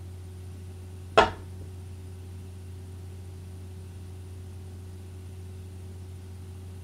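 A single sharp click or knock about a second in, over a steady low electrical hum.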